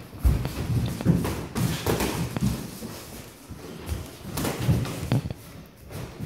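Boxing gloves thudding on gloves and headgear during sparring, in two quick flurries of irregular blows with a lull between them, along with shuffling footwork on the mat.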